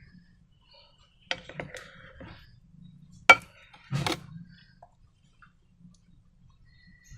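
Small handling sounds of hard objects: a few light clicks and rustles about a second in, a sharp click just past three seconds, then a brief knock about four seconds in.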